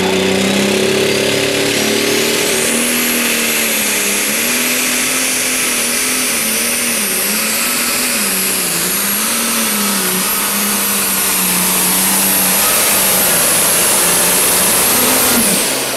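Case IH 7230 Pro Stock pulling tractor's turbocharged diesel under full load, pulling the sled. A high turbo whine rises over the first few seconds and then holds steady, while the engine note wavers up and down. Everything drops away suddenly near the end as the pull finishes.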